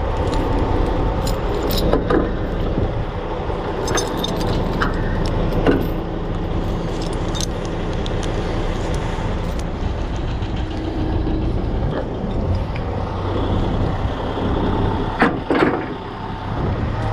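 Semi truck's diesel engine idling steadily, with scattered metal clinks and rattles as bungee cords and their hooks are handled; the loudest clanks come about two seconds before the end.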